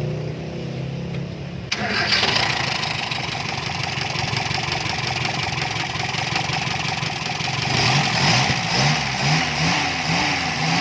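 Toyota Kijang's petrol engine being started: the starter cranks and the engine catches suddenly about two seconds in, then runs on, a little louder near the end. It has just had its oil-fouled number-three spark plug cleaned and refitted to cure a misfire.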